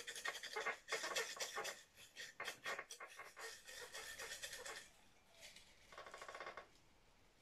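Folded paper slips rattling inside a mug shaken hard by hand, in quick irregular strokes. The shaking is densest at first, thins out, gives one last short burst about six seconds in, and then stops.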